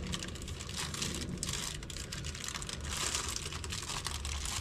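Clear plastic bag crinkling and rustling as hands handle and unwrap a small part packed in it, with fine crackles throughout.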